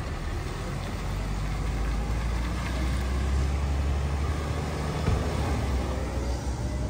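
Mack LE garbage truck's diesel engine running with a steady low rumble as the truck pulls away and turns off.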